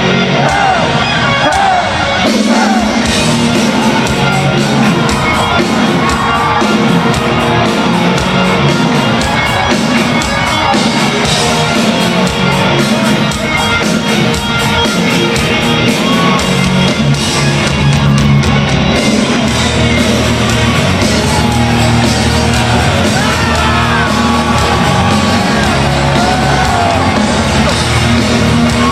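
Heavy metal band playing live in an arena, loud drums, bass and electric guitars with sung vocals, and the crowd shouting and singing along.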